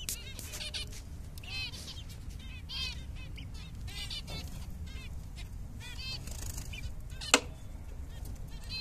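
Zebra finches calling: many short calls, each rising and falling in pitch, repeated every second or so from several birds and sometimes overlapping. One sharp click about seven seconds in is the loudest sound.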